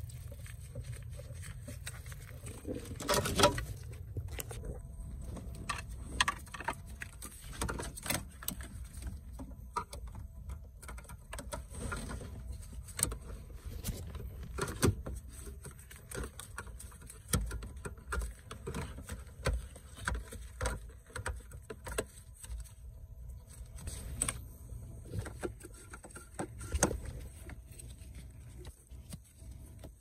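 Scattered clicks, knocks and rattles from wiring connectors and the ignition switch being handled under a car's steering column, over a steady low rumble.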